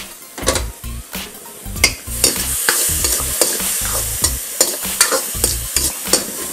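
Vegetables and added sauces sizzling in a hot iron wok while a metal ladle and wok spatula stir and scrape them, with repeated metal clinks against the wok, two or three a second. The sizzle grows louder about two seconds in as the liquid is cooked off.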